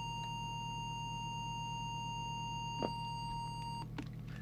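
Steady 1 kHz test-oscillator tone modulating a TTI TCB555 CB transmitter while its FM deviation is set, over a low hum. There is one brief click partway through, and the tone cuts off near the end.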